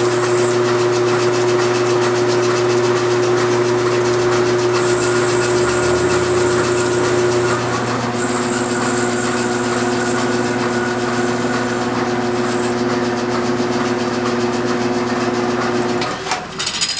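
Metal lathe running steadily, turning a small bronze piece with the cutting tool against it. The motor cuts off about a second before the end, followed by a few knocks.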